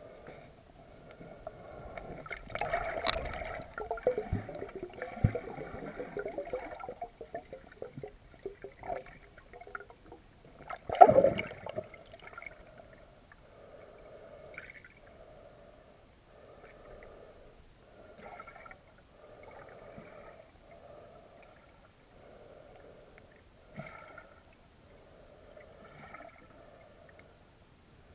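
Muffled underwater sound heard through a submerged GoPro camera housing: river water gurgling and crackling around it, with a single sharp knock about eleven seconds in. Later, softer swells come about once a second.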